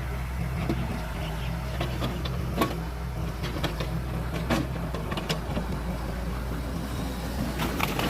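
Heavy engine running steadily with a low hum, with scattered sharp knocks and clanks about two and a half seconds in, twice in the middle and again near the end.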